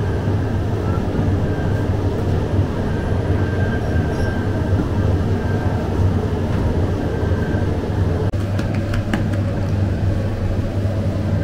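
Steady low drone of bakery machinery running, with a strong low hum, and a few light sharp taps about eight to nine seconds in.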